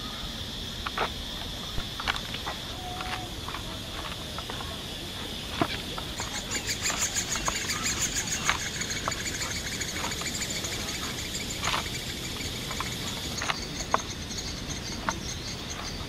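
Insects droning steadily at a high pitch, joined by a fast pulsing trill from about six seconds in until near the end, over scattered short clicks and cracks from sugarcane stalks being crushed under a wooden lever press.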